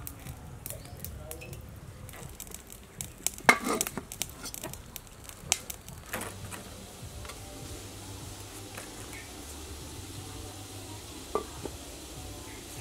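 Aluminium steamer pot and lid knocking and clattering as the lid is handled, the loudest clank about three and a half seconds in. Then a steady low noise of the steamer cooking, with one more metal clank near the end.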